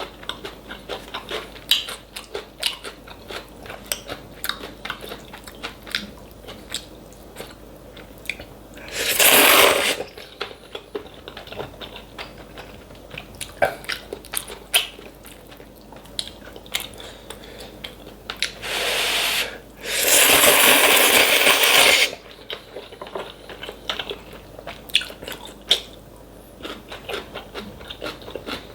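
Close-miked eating: steady chewing with many short, crisp crunches. It is broken by three loud slurps of kalguksu noodles, the longest and loudest about two-thirds of the way in.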